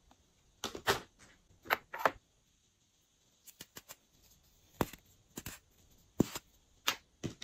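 A dozen or so sharp plastic clicks and taps, scattered and irregular, from a small screw-top lip balm jar being handled and twisted open.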